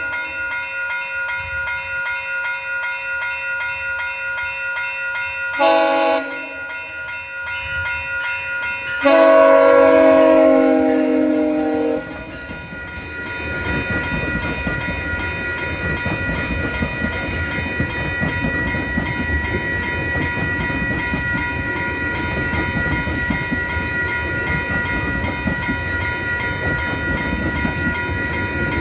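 Passenger train horn sounding for a level crossing: a blast that cuts off right at the start, a short blast about six seconds in, and a long, loud blast from about nine to twelve seconds, its pitch dropping slightly. The train then passes close by, its wheels rumbling and clattering on the rails.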